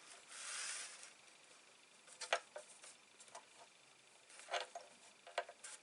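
Paper rustling softly for under a second, then a few faint, light clicks and taps as the sheet is lined up on a small paper trimmer.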